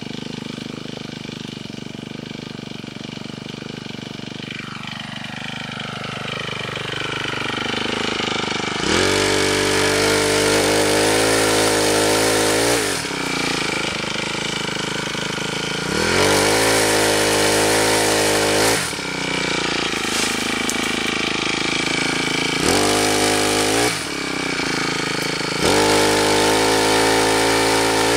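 Honda four-stroke brushcutter engine driving a pole pruner attachment. It idles, then is revved up to high speed four times, each burst lasting from about one to four seconds.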